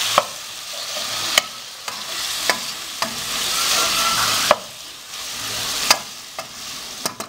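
Onion, tomato and garlic sizzling in oil in a non-stick frying pan as a spatula stirs them. The hiss swells and fades with each stir, and the spatula knocks sharply against the pan about once a second.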